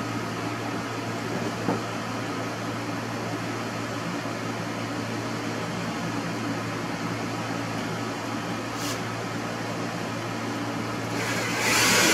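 A steady machine hum with a hiss behind it, and a couple of faint clicks. Near the end, a loud rushing noise lasts about a second and a half.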